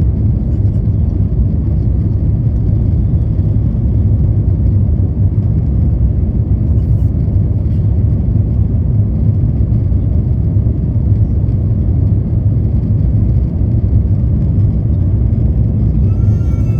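Steady low rumble of jet airliner cabin noise aboard an Airbus A350-900.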